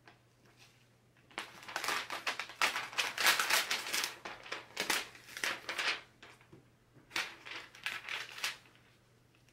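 Clear plastic peel-and-stick puzzle glue sheet crinkling and rustling under the hands as it is pressed and smoothed down onto the back of a jigsaw puzzle. There are two stretches of rustling, from about a second and a half in and again near the end.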